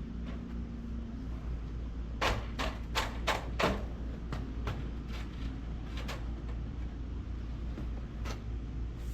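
A quick run of about six sharp taps or clicks a little over two seconds in, then lighter scattered ticks, over a steady low hum.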